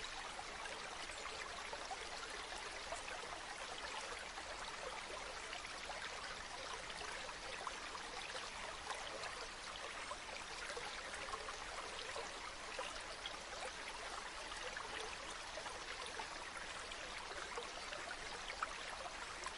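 Shallow river stream flowing over stones: a steady rush of water with fine splashing and trickling.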